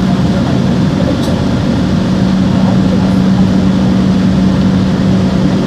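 Steady hum of a stopped Singapore MRT train standing at an underground platform with its doors open: an even machine noise with a constant low tone, its equipment and air conditioning running.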